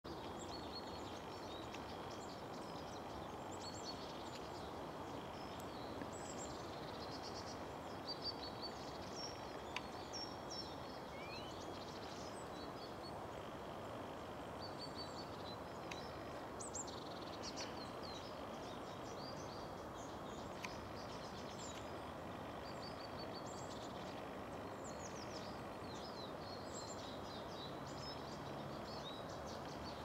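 Small songbirds singing, with short high chirps, trills and quick whistled glides repeated throughout, over a steady low rush of background noise.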